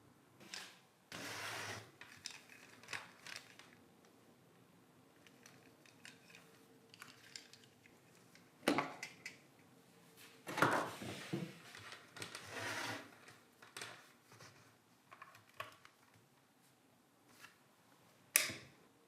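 Intermittent handling noises: short clicks, rustles and knocks of small objects being moved about. The sharpest clicks come about halfway through and again near the end.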